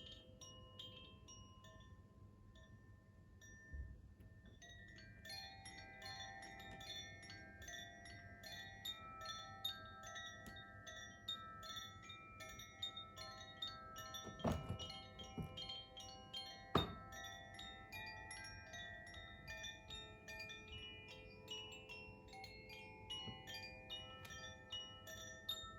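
Koshi chime, a hand-held tubular wind chime, swirled so its rods ring in overlapping bell-like tones, sparse at first and fuller from about five seconds in. Two sharp thumps stand out midway, a couple of seconds apart.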